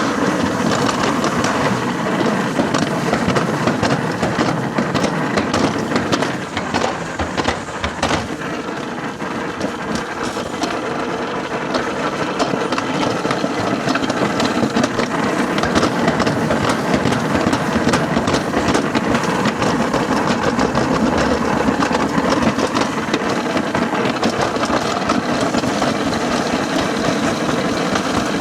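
Summer toboggan sled rolling fast down a metal slide track: a steady rumble with many rapid clicks and clacks.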